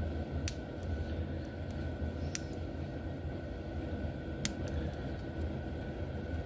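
A few sharp light clicks of small hand tools and parts being handled while taking apart an HO slot car motor, over a steady low hum.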